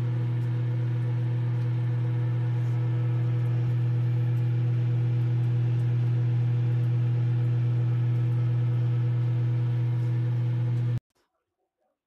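Midea 20L mechanical microwave oven running: a steady electrical hum with several overtones, which cuts off suddenly near the end.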